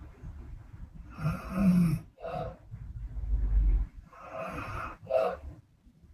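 A woman snoring in her sleep: a snoring breath with a low buzz about a second in, a short puff of air, a deep low rumbling breath, then another snoring breath about four seconds in that ends in a short puff.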